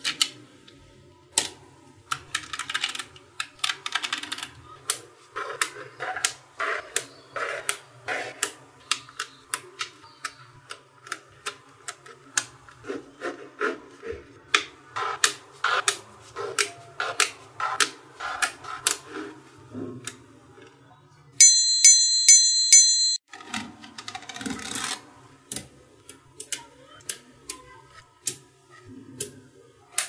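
Small metal magnet balls clicking and snapping together as they are handled and pressed into place, many sharp clicks at irregular spacing. A little past two-thirds of the way in, a loud burst of high ringing tones pulsing several times a second lasts under two seconds.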